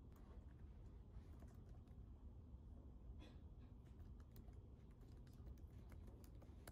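Faint typing on a laptop keyboard: soft, irregular keystroke clicks.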